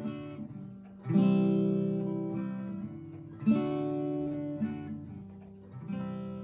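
Acoustic guitar strummed slowly, one full chord about every two and a half seconds, each left to ring and fade, with a few lighter notes between: the instrumental introduction before the singing comes in.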